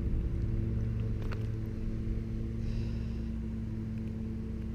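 A steady low mechanical hum holding one pitch throughout, with a faint click about a second in.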